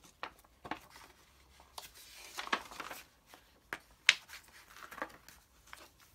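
Paper pamphlet being handled: rustling as the stiff folded paper is flipped over and opened, with a series of short sharp clicks and taps, the loudest a little after four seconds in.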